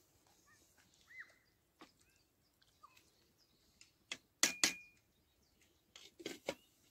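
A wooden spoon knocking sharply three times on the rim of a steel stock pot, the pot ringing briefly after the last knock, followed by a few softer knocks about six seconds in. Small birds chirp faintly in the background.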